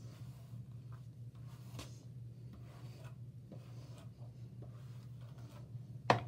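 Faint scratchy strokes of a hairbrush and hands pulled through long hair, over a steady low hum. A sharp knock comes right at the end.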